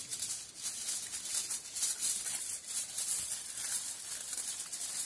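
Aluminium foil crinkling and crackling continuously as hands wrap it tightly around a Swiss roll.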